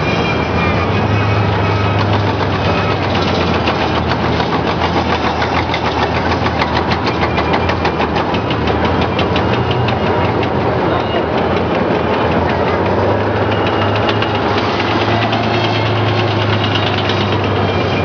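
PT-91M Pendekar main battle tank driving past, its V-12 diesel engine running with a steady low drone. The steel tracks give a fast clattering rattle that is loudest about halfway through, as the tank passes close by.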